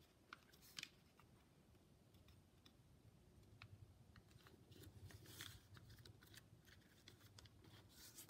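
Faint rustling and scraping of origami paper as fingers fold it and press a crease flat, in a scatter of short soft scratches over quiet room hum.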